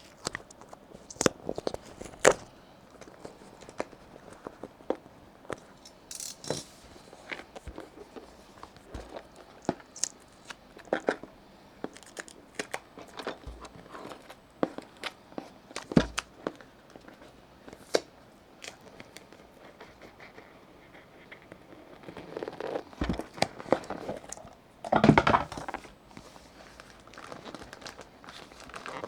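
Irregular clicks and knocks with crinkling, like a small keyboard kit and its plastic packaging being handled, with a denser, louder stretch of rustling near the end.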